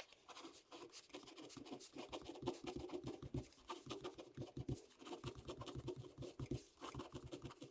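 Rapid, irregular tapping and scratching with soft low thumps.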